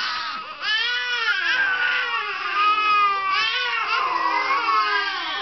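A baby crying in repeated high cries that rise and fall in pitch, with a short break about half a second in. The crying is an infant's protest at being laid on its back.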